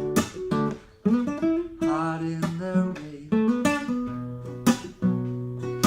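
Acoustic guitar strumming chords, several strokes ringing on between them, with no singing.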